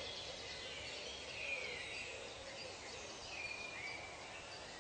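Forest ambience: several birds calling over a steady hiss, with short gliding whistled notes repeating every second or so and fainter chirps above them.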